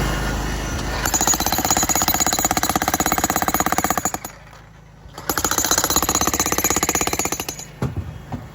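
Demolition hammer breaking up a concrete sidewalk: rapid, steady hammering in two runs with a pause of about a second between them, then a few separate knocks near the end, over a low machine hum.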